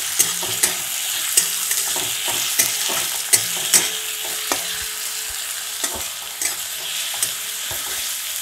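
Sliced onions sizzling in hot mustard oil in a metal kadai, stirred with a metal spatula that gives sharp scrapes and clicks against the pan every second or so over the steady sizzle.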